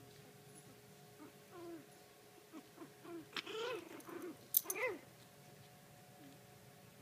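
Puppies whimpering and yipping in play: a run of short, high calls that bend in pitch, about one to five seconds in, loudest near the end of that run. A sharp click sounds just before the last call.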